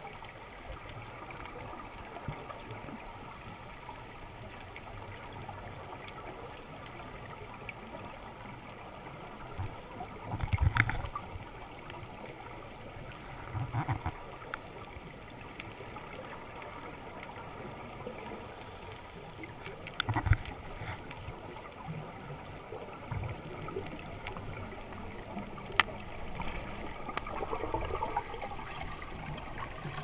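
Underwater ambience picked up through a camera's waterproof housing: a steady watery hiss with a faint steady hum and a few dull knocks and clicks. Near the end comes a bubbling gurgle as a freediver rises among exhaled air bubbles.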